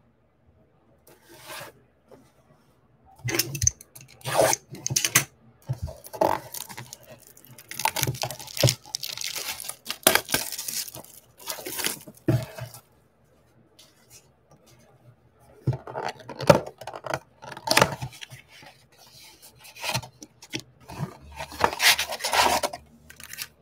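Plastic shrink wrap being torn and peeled off a cardboard trading-card blaster box, in irregular crackling bursts. After a short pause the cardboard box is torn open.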